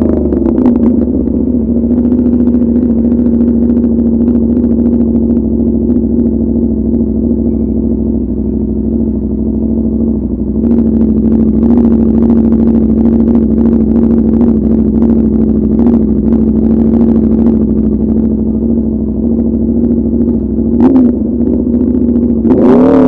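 Aprilia RSV4 RF's V4 engine, through a de-catted SC Project CRT exhaust, idling steadily after dropping back from a rev at the start. It gives a short blip about 21 seconds in and begins revving up again at the very end.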